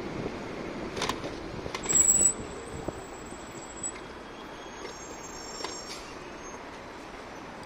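Street traffic noise as a city bus drives past close by, with a brief high squeal about two seconds in.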